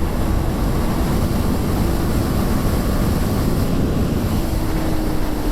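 KTM 390 Duke's single-cylinder engine running hard at speed in fifth gear, its steady note easing slightly lower near the end, under heavy wind rush on the microphone.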